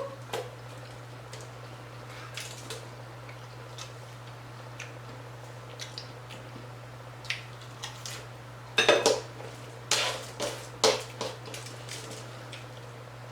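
Scattered sharp clicks and crunches of hard stand-and-stuff taco shells being handled and eaten close to the microphone, with louder clusters about nine seconds in and again a second later, over a steady low hum.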